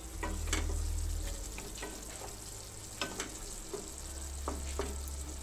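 Spatula stirring and scraping thick hilsa-roe masala in a non-stick kadai over a steady sizzle, with about eight sharp scrapes and taps of the spatula on the pan. The masala is cooking down in oil, with the oil coming out. A low rumble runs under the first second and again near the end.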